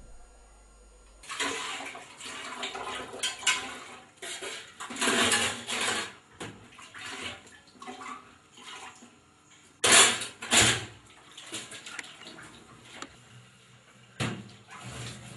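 Dishes being washed by hand in a stainless-steel sink: water splashing and sloshing, with crockery clattering in irregular bursts. The loudest clatters come about ten seconds in.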